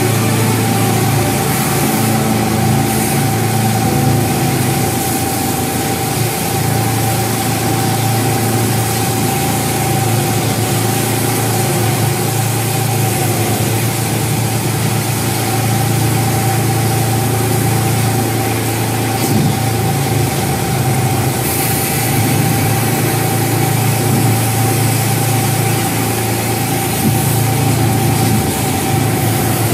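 Engine running steadily at a constant speed: a low hum with a steady whine above it, over a continuous hiss.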